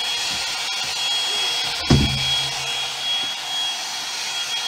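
Round hot-air brush (dryer brush) running steadily, a whirring hiss with a thin high whine, as it is worked through long hair to dry it. A sharp thump about two seconds in, the loudest moment, with a brief low hum after it.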